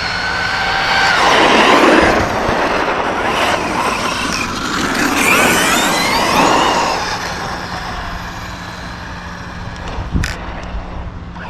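Arrma Kraton 6S V6 RC truck's brushless electric motor whining up and down in pitch as the truck accelerates and slows, with a rush of tyre noise. It is loudest twice, about 2 and 6 seconds in, then fades, with a few sharp clicks near the end.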